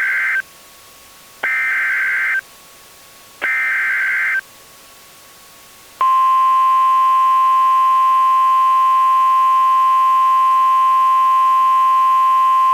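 Emergency Alert System SAME header: repeated bursts of warbling digital data tones, each about a second long with a second's gap, the first already under way, then two more. About six seconds in, the steady single-pitched NOAA Weather Radio warning alarm tone starts and holds.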